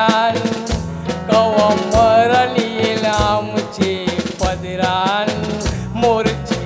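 A man singing a song into a microphone over a backing of drums and percussion, the melody line wavering with vibrato.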